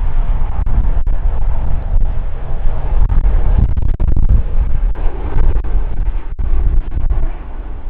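Boeing 787-8 Dreamliner's jet engines at takeoff thrust as it rotates and lifts off: a loud, steady, deep rumbling roar.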